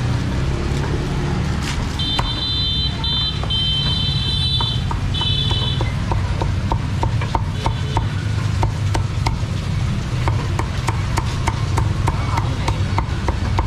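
Meat cleaver chopping crisp-skinned roast pork on a thick wooden chopping block, sharp strokes at a few a second from about six seconds in, coming faster near the end, over a steady low hum. Before the chopping, a high-pitched tone sounds in a few short stretches.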